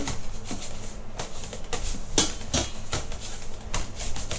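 Metal ladle knocking and scraping against a stainless steel mixing bowl in an irregular series of sharp clinks, mashing a lump of palm sugar to break it up.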